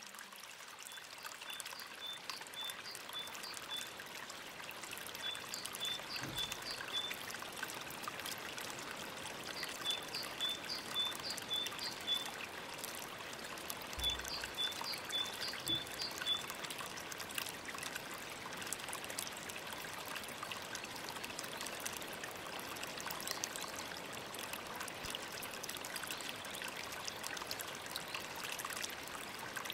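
Running water splashing steadily. A bird sings over it in four short runs of quick, high repeated notes during the first half.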